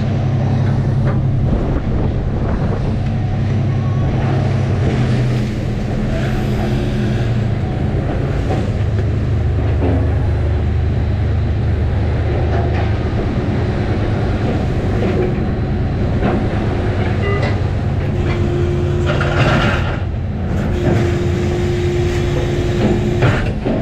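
A crab boat's engine and deck hydraulics running with a steady low drone, with scattered knocks of gear on deck. A higher steady tone comes in twice in the last few seconds.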